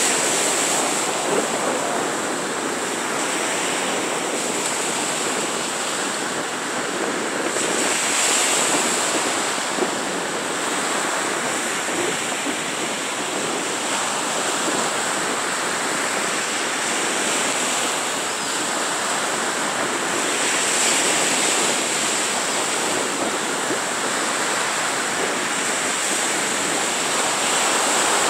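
Small waves breaking and washing up on a sandy Gulf of Mexico beach: a steady surf hiss that swells every several seconds as each wave comes in.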